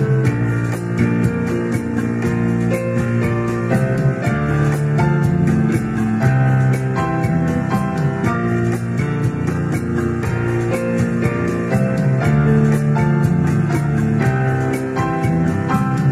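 Background music with sustained notes over a steady beat.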